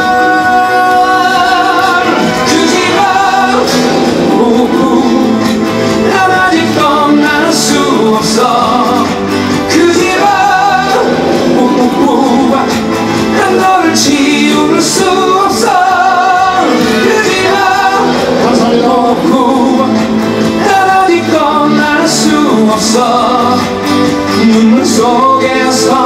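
A live song played through a PA system: a man singing, acoustic guitar and a full backing with drums, the melody wavering with vibrato.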